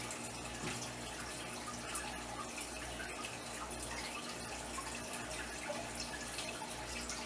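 Aquarium water trickling and splashing steadily, as from a filter return, with a low steady hum underneath.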